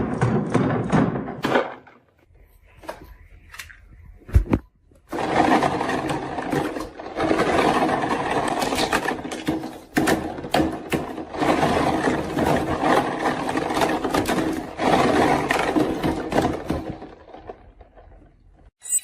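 Marbles rolling and clattering down a wooden marble run. A short run of rolling is followed by a pause with a single thud about four seconds in. A long run of rumbling and clicking follows and fades out near the end.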